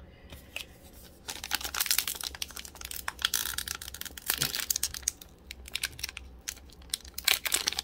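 Foil wrapper of an Upper Deck hockey card pack being torn and crinkled open by hand, a dense crackling that starts about a second in and runs for several seconds; the pack is hard to open.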